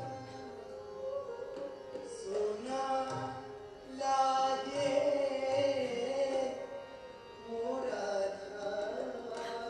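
Indian classical vocal music: a voice singing a slow, ornamented melody over a steady drone, with light tabla, played back from film footage of a Kathak performance. The singing swells loudest about four to six seconds in.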